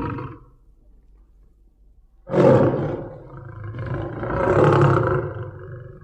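Lion roaring: a brief end of a call right at the start, then a sudden loud roar about two seconds in that swells again and fades away near the end.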